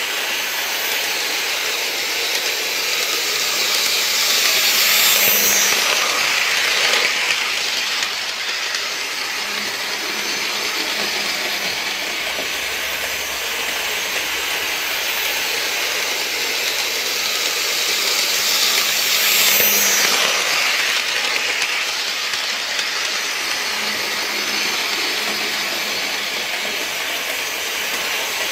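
H0 model train running on floor-laid track, a steady whirring hiss of the motor and wheels on the rails. It swells and fades twice, about fifteen seconds apart, as the train comes close and moves away again.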